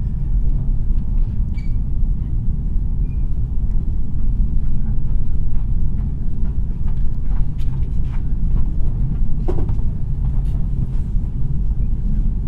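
NDJ3 diesel push-pull train heard from inside the passenger car as it pulls slowly out of the station: a steady low rumble.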